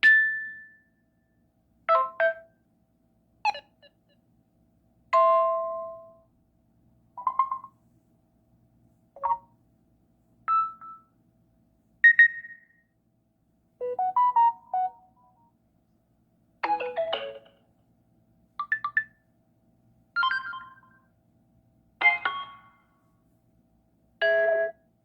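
Mobile phone notification tones played one after another, about fourteen short electronic chimes and jingles, each a different tone, one every one to two seconds.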